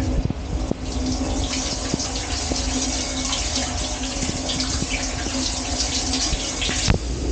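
Water spraying and splashing inside a running dishwasher, over a steady hum from its wash pump. The spray cuts off suddenly near the end.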